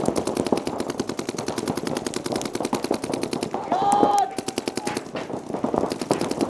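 Paintball markers firing rapidly and without pause, a fast stream of sharp pops from several guns at once. A brief shout cuts through about four seconds in.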